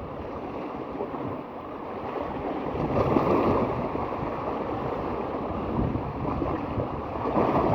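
Wind buffeting the microphone over waves washing on the shore, a steady rushing that gusts louder about three seconds in and again near the end.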